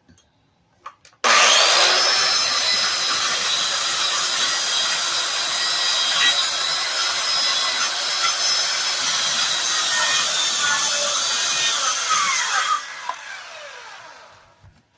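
Circular saw cutting through a wooden floor: it starts about a second in, cuts steadily for about eleven seconds, then the blade winds down with a falling whine.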